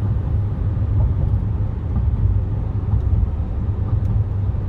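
Chevy 3500 pickup towing a fifth-wheel camper at highway speed, heard inside the cab: a steady low rumble of engine and tyre noise.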